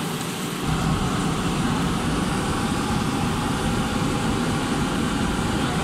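Riello RS-series modulating gas burner being test-fired into open air: its fan runs, then about half a second in the flame lights with a sudden deep rumble and burns on steadily.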